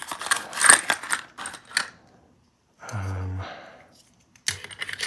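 Small metal cabinet wafer locks clicking and clattering as they are handled, a quick run of sharp metallic clicks that stops, then starts again near the end. A short low hum of a voice comes in the middle.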